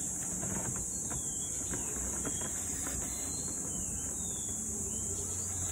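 Steady high-pitched drone of an insect chorus, with a few short falling chirps over it. Faint taps from hands handling the cardboard boot box in the first half.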